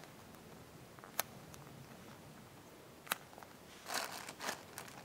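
Faint handling noise from small squishy toys being moved about: two sharp clicks, about a second and about three seconds in, then brief rustling near the end.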